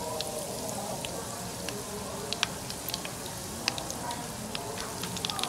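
Spring rolls (lumpiang Shanghai) deep-frying in a saucepan of hot oil: a steady sizzle of bubbling oil with scattered sharp pops and crackles.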